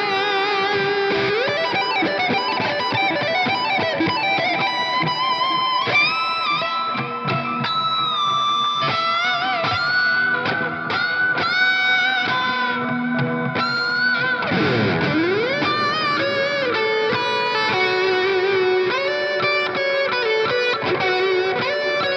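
Electric guitar with a new budget pickup, played through Amplitube 4 amp simulation: single-note lead lines with string bends and vibrato, and a sweeping pitch glide about two-thirds of the way in.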